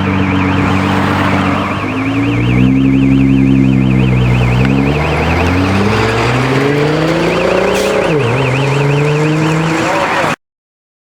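Nissan GT-R R35's twin-turbo 3.8-litre V6 revving, its pitch rising and falling several times, then climbing steadily for a few seconds before dropping sharply about eight seconds in. A high, rapidly warbling tone sounds above the engine, and everything cuts off abruptly near the end.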